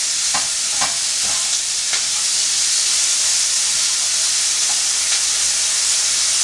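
Chopped bacon sizzling in a frying pan over a gas burner, a steady hiss, while it is stirred; a few clicks of the utensil against the pan in the first two seconds.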